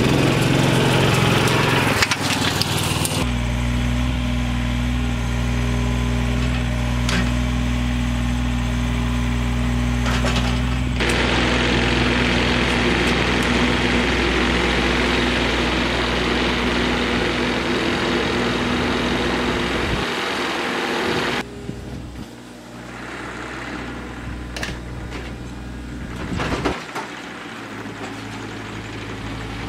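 Small engine-powered vehicles running: first a utility vehicle driving up, then a small tractor's engine running with a steady, even hum. The tractor gets noisier about a third of the way in and falls away sharply about two-thirds of the way in as it drives off.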